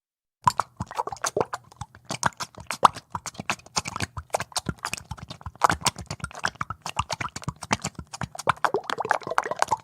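Bubbles plopping and popping in a thick oil-and-water liquid: a dense, irregular run of short wet plops. It starts after a brief silence about half a second in.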